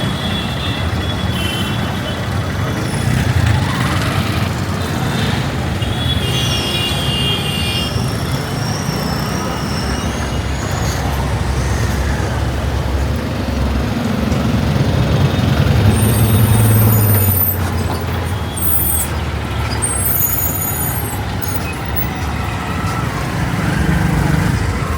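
Busy city road traffic: vehicle engines running and passing in a steady rumble, one passing louder about two-thirds of the way in, with a few brief high squeals over the top.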